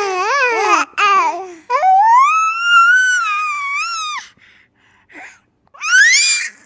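A baby vocalizing: a string of high, wavering babbles, then one long drawn-out squeal, and a short rising squeal near the end.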